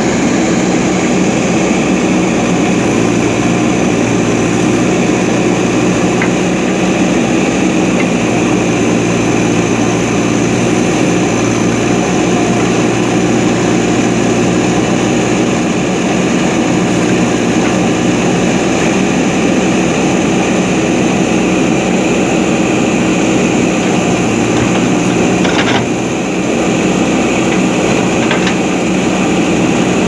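JCB 3DX backhoe loader's diesel engine running steadily under load as the backhoe digs, heard close by, with a short dip in level near the end.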